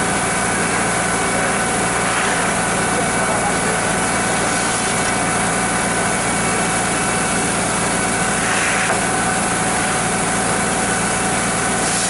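Tractor engine and grain auger running steadily. A shovel scrapes gravel and shelled corn briefly about two seconds in and again near nine seconds.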